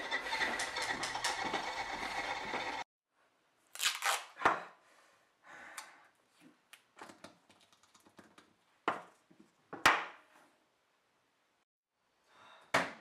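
Music that cuts off about three seconds in, then duct tape being pulled and torn off its roll, with a few sharp knocks of things set down on a countertop.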